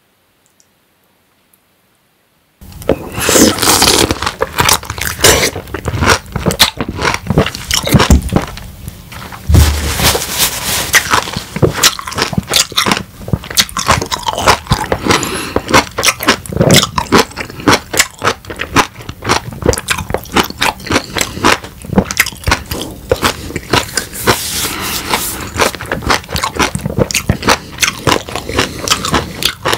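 A whole peeled lemon bitten into and chewed close to the microphone. Dense, irregular crackling chewing sounds start about two and a half seconds in, after near silence.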